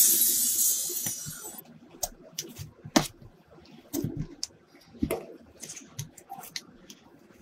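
A sparkly sound effect fades out over the first second and a half. Then come scattered light clicks and taps as a plastic toy rolling pin is rolled back and forth over play dough on a table.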